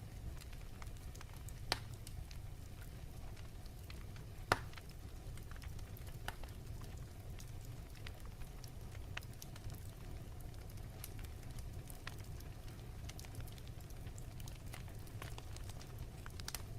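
Wood fire crackling in a fireplace: a steady low rumble of flames with scattered pops and snaps, a louder pop near two seconds in and the loudest about four and a half seconds in.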